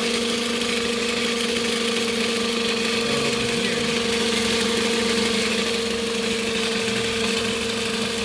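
2005 Toyota Camry engine idling steadily, with a constant tone running over the engine noise: a new, odd sound that the owner believes comes from the timing belt.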